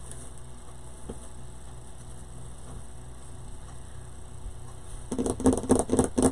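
Steady low electrical hum. About five seconds in comes a short, louder burst of rustling and knocking close to the microphone.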